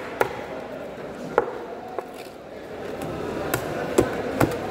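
Large knife chopping through raw trevally onto a wooden chopping board: about six sharp chops at uneven intervals, the loudest near the end.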